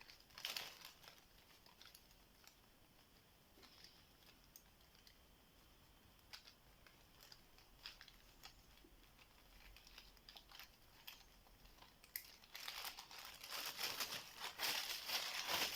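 Plastic bag crinkling and rustling around hands, with faint scattered small clicks as a four-wheel combination padlock's number wheels are turned by feel. The rustling grows louder for the last few seconds.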